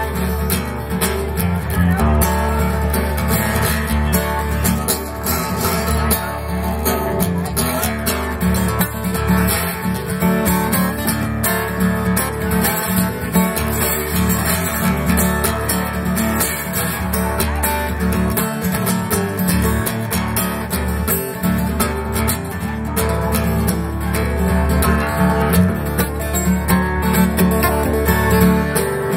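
Acoustic guitar played solo, an instrumental passage of strummed chords with no singing.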